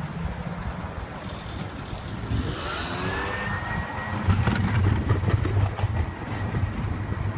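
Wind rumbling on the microphone of a moving bicycle ride, growing louder about four seconds in. About two and a half seconds in, a whine rises in pitch and then holds as a steady high tone.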